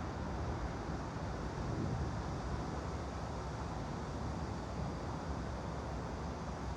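Steady white-noise ambience: an even, unbroken rumbling hiss, heaviest in the low end, with no distinct events.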